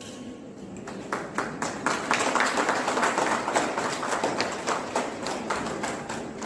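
A small group applauding by hand: scattered claps start about a second in, thicken into steady applause, and thin out near the end.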